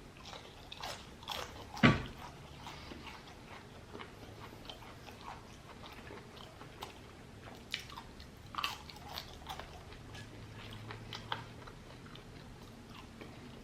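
A person biting into and chewing crispy fried shrimp: one sharp crunch about two seconds in, then quieter chewing with scattered small crunches.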